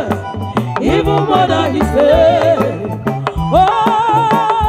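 Women's voices singing into microphones over a live band, with a repeating bass line and drum hits. Near the end one voice holds a long note with vibrato.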